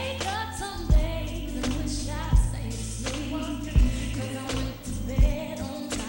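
A song with a lead vocal over music, marked by loud, deep bass hits about every second and a half.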